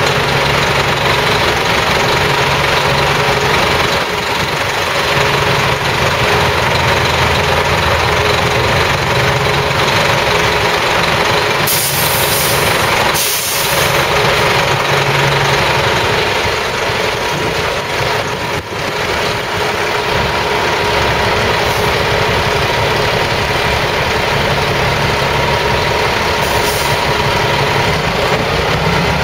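Heavy-duty tow truck's diesel engine idling steadily, with two short hisses of air about twelve seconds in and a fainter one near the end.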